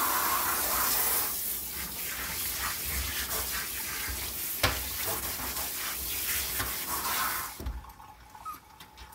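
Handheld shower sprayer running, water spraying onto a small dog's coat and the bathtub as the coat is soaked for bathing. The flow cuts off near the end, with a single knock about halfway through.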